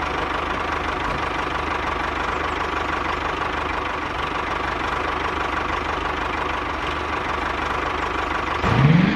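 Small engine of a DIY mini tractor running steadily with a regular knock, just after starting. Near the end it rises sharply in pitch.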